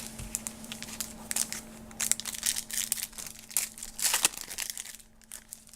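Trading-card pack wrapper crinkling and tearing as it is opened, a dense run of crackles that dies down about four seconds in.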